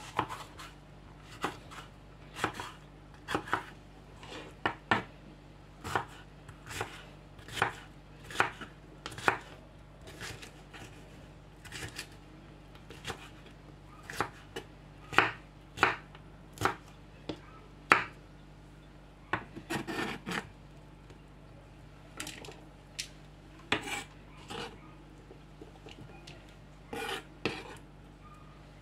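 Kitchen knife chopping a red bell pepper on a white plastic cutting board: irregular sharp knocks of the blade striking the board, about one or two a second, with a quicker flurry about twenty seconds in.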